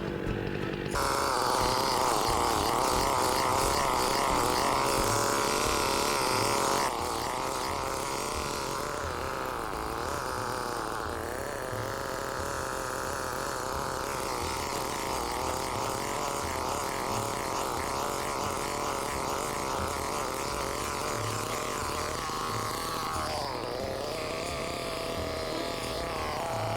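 Two-stroke chainsaw running at high revs while cutting into a red oak. It gets louder about a second in, drops back somewhat about seven seconds in, then runs on steadily.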